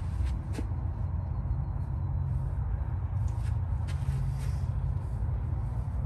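Hands folding a large cotton-and-nylon American flag, with a few faint rustles and taps of the cloth, over a steady low outdoor rumble.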